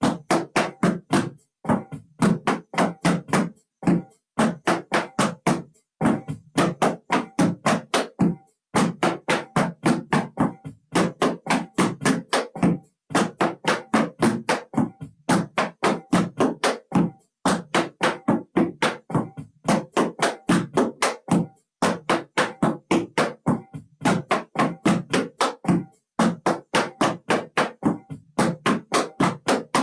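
Metal-tipped tap shoes striking a plywood board in a fast single-shuffle drill: a steady stream of sharp taps, about four to five a second, in short runs with brief gaps between them.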